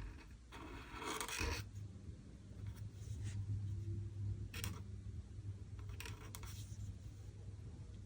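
Pen scratching on paper in drawing strokes: one longer stroke about a second in, then a few short quick strokes, over a low steady hum.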